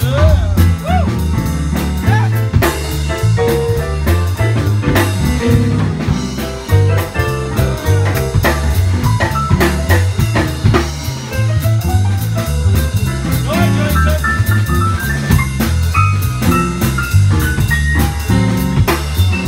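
Live small jazz band playing a swing tune, with a stepping bass line and drum kit keeping a steady beat under a melodic solo.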